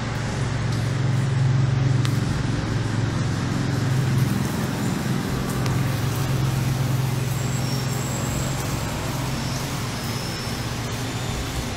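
Strong wind rushing steadily, with a heavy low rumble beneath it, as a tornado passes close by.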